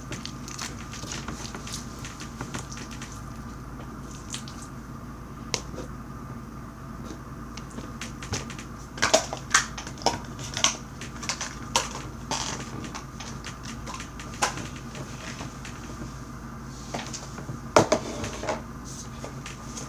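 Crunchy white slime full of styrofoam balls being squeezed and worked by hand: scattered crackles and pops, busiest about halfway through.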